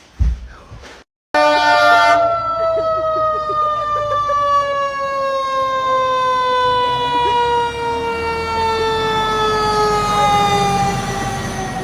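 Fire engine siren winding down, one long wail whose pitch falls slowly and steadily for about ten seconds, over the low rumble of the truck's engine.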